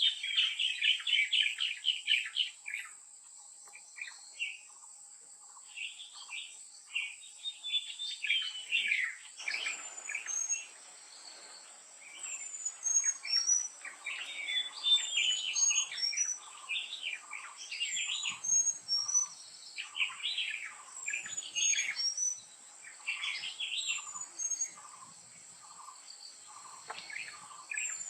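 Wild birds chirping and calling in a chorus of short, rapid notes, over a steady high insect drone. From about ten seconds in, a short falling call repeats every couple of seconds.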